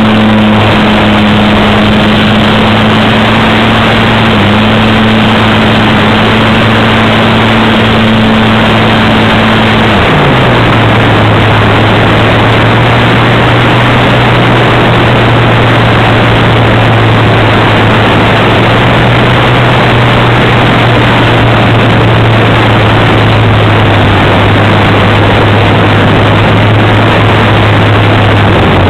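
Brushless outrunner motor and propeller of a small RC glider heard from an on-board camera under loud wind rush over the microphone. The steady motor hum slides down in pitch about ten seconds in, as the throttle is eased back for the glide down, and drops again right at the end.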